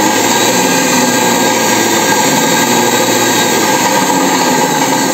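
Belt-driven electric motor of a homemade lathe running steadily at speed, spinning the chuck: a loud, even whir with several steady tones.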